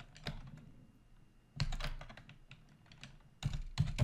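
Typing on a computer keyboard: irregular keystrokes in a few short runs, separated by pauses.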